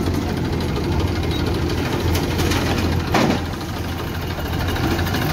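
Massey Ferguson 1035 DI tractor's three-cylinder diesel engine idling steadily close by. A short, sharp sound about three seconds in, falling in pitch, is the loudest moment.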